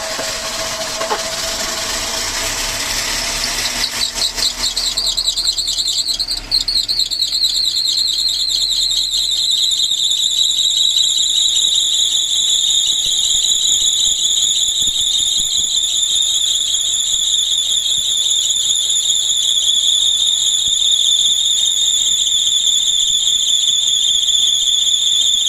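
Mercedes-Benz W124 E230 four-cylinder engine running just after starting, with a loud squeal from the accessory belt drive. About six seconds in it settles into a steady, piercing high squeal with a slight warble. The squeal persists despite a new vibration damper and ribbed belt, and the owner suspects the alternator or the belt tensioner pulley.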